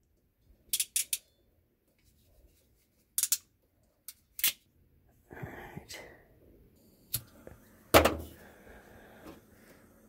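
Sharp clicks and snaps of hand tools while crimping pliers close on a wire connector: a few scattered clicks, some handling rustle, then the loudest, a sharp click with a thud, about eight seconds in, followed by a faint steady hiss.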